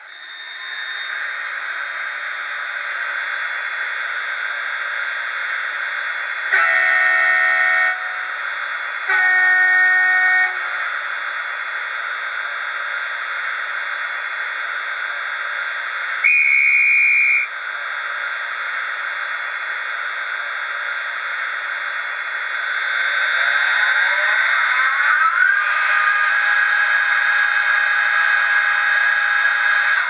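Sound decoder of an N gauge ÖBB Taurus electric locomotive model playing through its tiny speaker, thin with no bass. A steady running hiss is broken by two horn blasts about 6 and 9 seconds in and a short high guard's whistle around 16 seconds. From about 22 seconds rising tones set in and the running sound grows louder.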